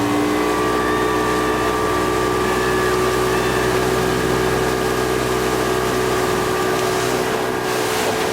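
Motorboat engine running at a steady speed, with an even hiss of rushing water and wind.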